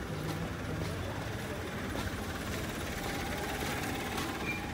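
Street noise with a motor vehicle's engine running nearby, a steady low rumble.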